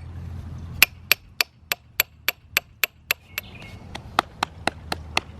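Hammer striking a steel chisel to dress limestone: quick, even, ringing taps about three or four a second, with a brief pause about three seconds in before a second run of taps.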